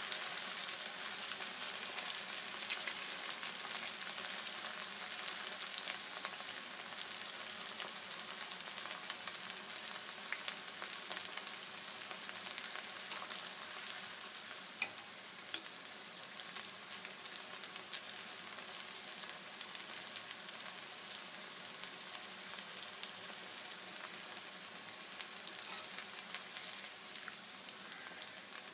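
Rice-paste kurkure frying in hot oil: a steady sizzle with scattered small pops and crackles, easing slightly about halfway through.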